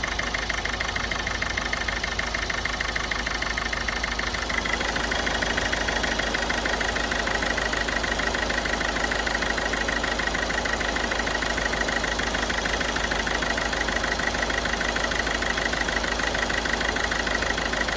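Ford Figo's turbocharged engine idling with a slight misfire ("missing") during a decarbonising treatment fed into its intake; the misfire is taken for an injector fault. The running gets a little louder about four and a half seconds in.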